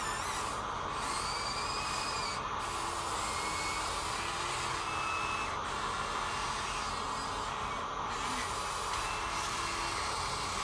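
Steady whirring of the small electric motors of radio-controlled toy excavators, with faint whining tones that shift in pitch as the motors work.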